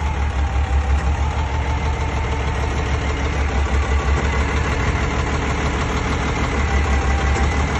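Diesel engine of a Kalmar DCE 120-6 heavy forklift running steadily at idle with an even low throb.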